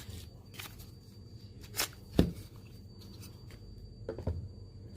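A few light knocks and clacks of cordless drills being handled and set down on a weighing scale, the loudest about two seconds in and a quick pair near the end.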